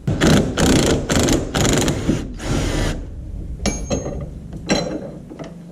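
Cordless impact wrench hammering in about seven short bursts over three seconds as it undoes a rear suspension bolt, followed by two sharp metallic clinks.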